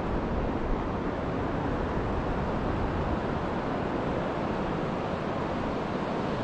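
Surf breaking on a sandy beach: a steady, unbroken wash of wave noise, with a low wind rumble on the microphone.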